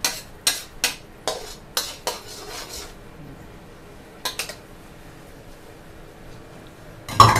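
Metal spatula scraping and knocking against an aluminium wok while scraping up sticky cooked coconut-sugar caramel, with strokes about every half second for the first three seconds and another about four seconds in. A louder knock comes near the end.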